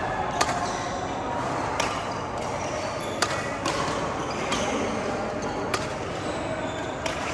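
Badminton rackets striking the shuttlecock in a rally: six sharp cracks, evenly paced about every second and a quarter, over a murmur of voices.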